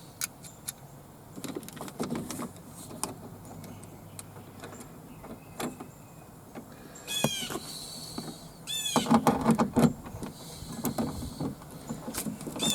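Scattered clicks and knocks of a metal door-panel bracket and parts being handled and fitted inside a car door, with a louder run of clatter a little past the middle. Two quick chirps that sweep down in pitch come just before that clatter.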